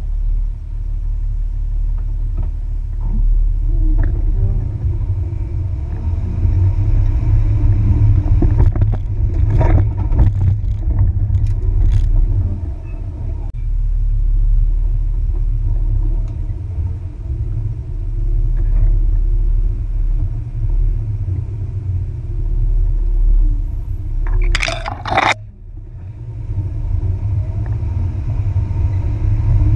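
Jeep Wrangler TJ driving slowly over a rough off-road trail, heard on board: a steady low engine rumble, with a cluster of knocks from the vehicle jolting over the ground about ten seconds in and a brief louder noise near the end.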